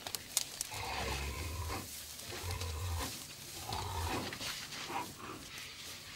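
Big cat growling: three low, rumbling growls about a second apart.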